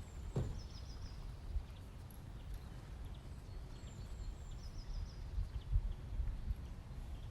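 Outdoor ambience: a low rumble of wind or microphone noise, with a small bird twice singing a short phrase of four quick high notes.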